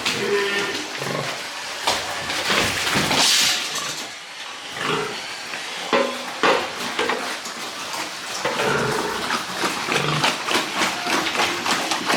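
Pigs grunting in irregular bursts, with scattered clicks and knocks near the end.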